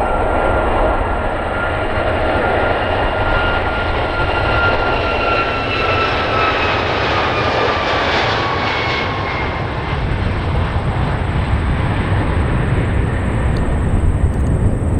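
Jet airliner engines running with a deep rumble and a thin whine, the whine sliding down in pitch and fading about halfway through as the plane goes by.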